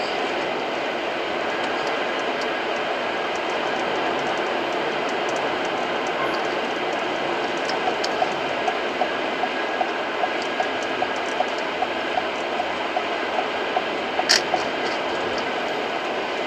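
Steady road and engine noise heard inside the cabin of a moving car. From about halfway through, a regular light ticking comes in, two to three ticks a second, with one sharper click near the end.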